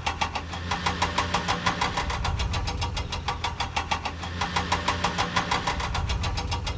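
Engine sound effect of a cartoon vehicle running: a steady rapid chugging of about ten beats a second over a low hum.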